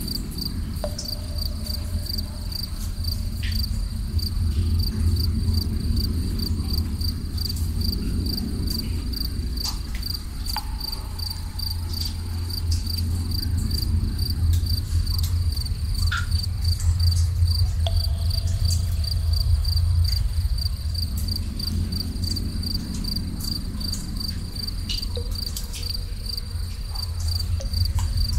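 Crickets chirping in a steady, rapidly pulsing high trill, over a deep low rumble that swells and fades every several seconds, with occasional faint water drips.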